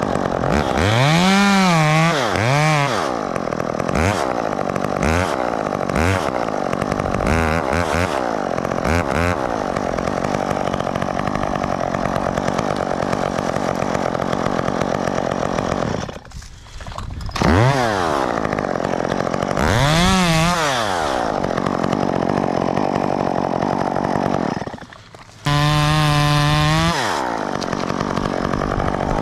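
Two-stroke top-handle chainsaw cutting oak limbs, revving up in short bursts and falling back to idle between them, with one longer held rev near the end. The engine note briefly drops away twice, about halfway through and again near the end.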